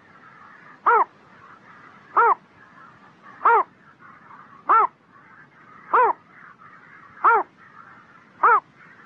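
A heron's short, harsh call, given seven times at an even pace of about one every second and a quarter, each call rising and then falling in pitch.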